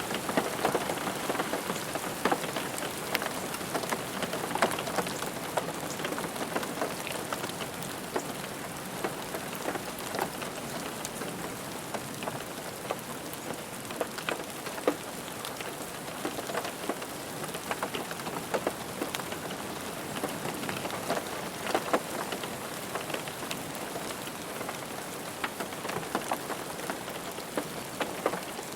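Steady rain drumming on a car roof: a constant hiss with many scattered individual drop taps on the metal.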